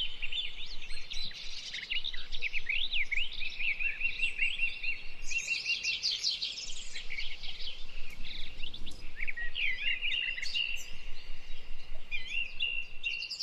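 Several songbirds singing and chirping at once: quick high chirps, sliding notes and trills overlapping, with a fast, even trill held for a couple of seconds now and then.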